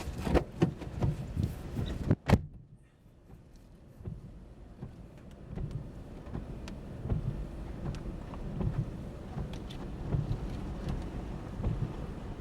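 Road and wind noise inside a moving car: a steady low rumble with scattered knocks. A sharp click a little over two seconds in is followed by a sudden brief drop in level.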